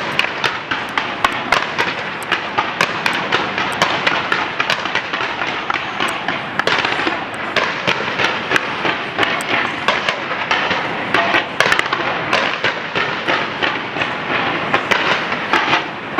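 Fireworks display: a dense, unbroken barrage of sharp bangs and crackling, several reports a second over a steady rumbling hiss.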